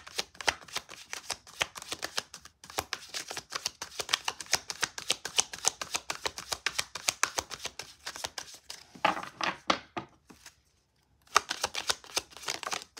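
Tarot cards being shuffled by hand, a fast patter of card edges clicking and slapping as packets of the deck pass between the hands. It stops for about a second, ten seconds in, then starts again.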